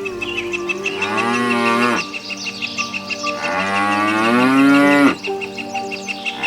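Cow mooing twice: a short call about a second in, then a longer, louder moo that falls in pitch as it ends.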